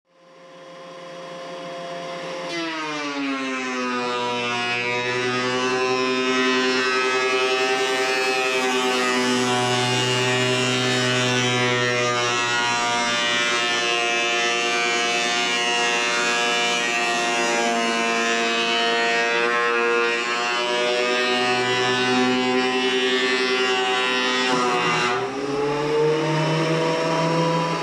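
Delta Shopmaster benchtop thickness planer running and planing a board. The motor's whine drops in pitch about two and a half seconds in as the cutterhead takes the cut, holds lower under load, and climbs back up near the end as the board feeds out.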